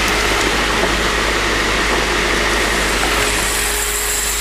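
Waste-vegetable-oil centrifuge motor and spinning bowl running steadily at speed with a constant hum. A higher hiss joins about three seconds in, as the feed valve is opened and oil starts to feed into the bowl.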